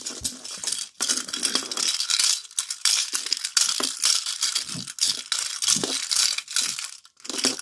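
Crinkling and rattling of thin plastic as a yellow plastic toy egg is handled and pulled open close to the microphone, with brief pauses about a second in and near the end.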